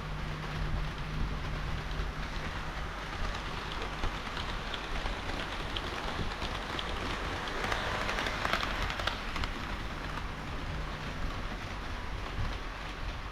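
HO-scale model train running on layout track: a steady rattling rush of small wheels on rails with faint clicks at the rail joints over a low motor hum, growing louder for a moment about eight seconds in.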